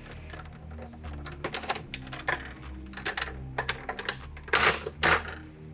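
Irregular small clicks and plastic rattles as the front cover of a DVD player's disc tray is pried at to release its two clips.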